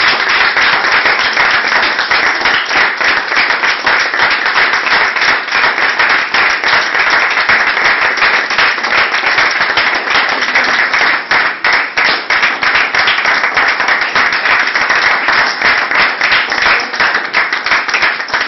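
A small group of people applauding: dense, steady hand-clapping.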